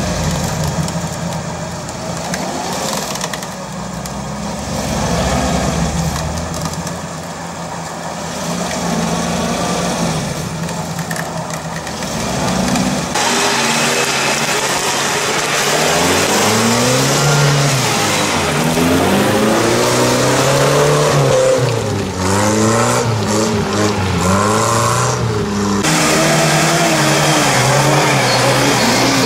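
UAZ-469 off-road engines working in deep mud. First a steady engine note. About halfway through, after a cut, another engine revs up and down over and over as it churns and wheelspins through the mud.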